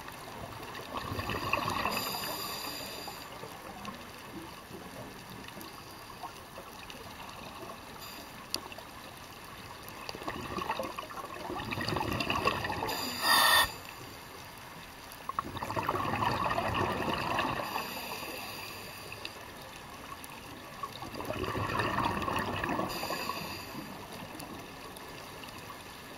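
Scuba diver breathing through a regulator underwater: four long rushes of exhaled bubbles come several seconds apart, with a short, sharp hiss about thirteen seconds in.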